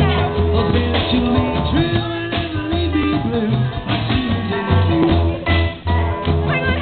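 Music with a pulsing bass line in a steady beat and a melody over it.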